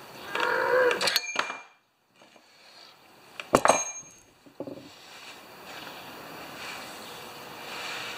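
A ratchet wrench clicking in short strokes for about the first second as the oil drain plug is tightened. After a brief quiet, a single sharp metallic clank about three and a half seconds in.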